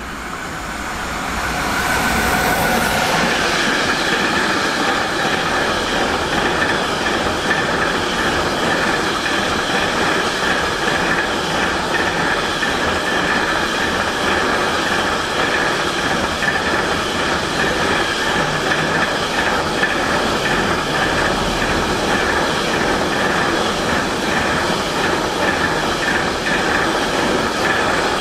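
A train passing close by. The noise builds over the first two seconds, then holds steady and loud as the wheels clatter along the rails, with a faint squeal over it.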